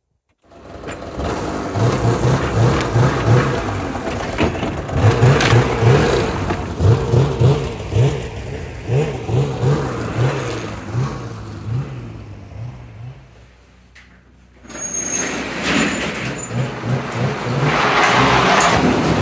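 Snowmobile engine running and revving in repeated rises and falls while the sled is ridden. It fades and drops out briefly about two-thirds of the way through, then comes back running steadily.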